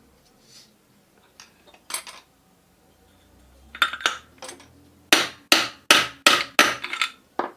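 A hammer striking metal while working on a ceiling fan's bearing: a few scattered light knocks and clicks, then a quick run of about seven sharp blows, roughly three a second, in the last couple of seconds.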